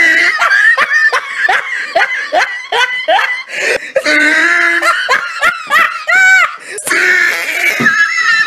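A person laughing hard in quick repeated bursts, about three or four a second, with a few longer, higher-pitched cries.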